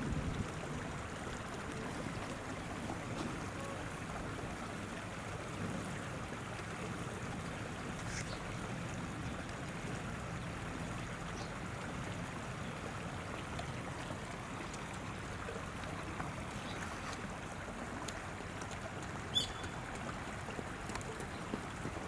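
Shallow river water running steadily over stones, with a couple of brief faint clicks, one about a third of the way in and a slightly louder one near the end.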